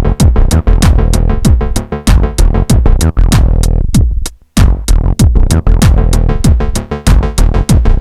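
Live acid techno on hardware synths and a drum machine: a steady four-on-the-floor kick and fast hi-hats under a Behringer TD-3 acid bassline and synth parts. About three and a half seconds in, the music fades and drops out for about half a second, then comes straight back in.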